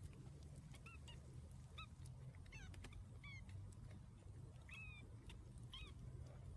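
Kittens mewing faintly: about six short, high squeaks, scattered across a few seconds over a steady low hum.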